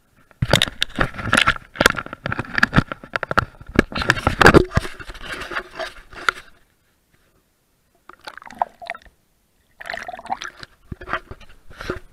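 Handling noise and stream water: a dense clatter of knocks and scrapes against the camera's mic, with water sloshing and splashing as a caught brown trout is handled at the water's surface. The noise breaks off for a second or two past the middle, then comes back in shorter bursts near the end.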